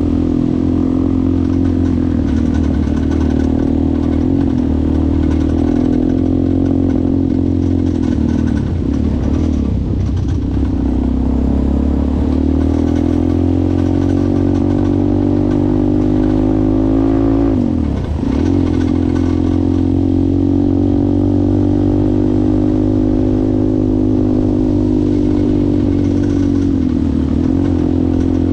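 ATV engine running under throttle while riding, its revs rising and falling. About two-thirds of the way through, the revs drop sharply and then pick up again, as when the throttle is eased off and reopened or a gear is changed.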